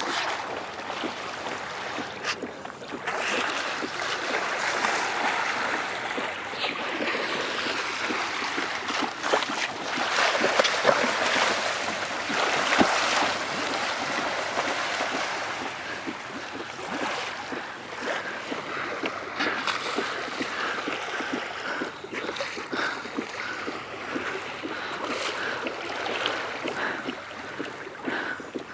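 Sea water splashing and lapping against a kayak's hull, a continuous wash of small splashes that grows louder around the middle.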